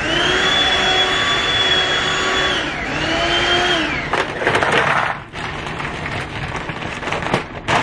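Handheld cordless vacuum cleaner running on couch cushions with a steady high motor whine that drops in pitch near the middle, comes back briefly and winds down again. Then a plastic bag crinkles and rustles in short crackles.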